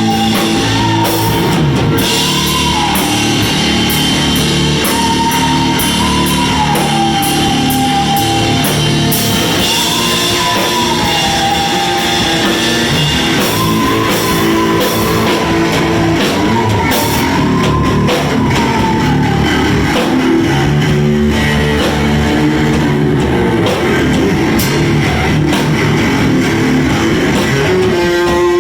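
A rock band playing live on electric guitars and drum kit. A lead line bends up and down, repeating about every four seconds over the steady band.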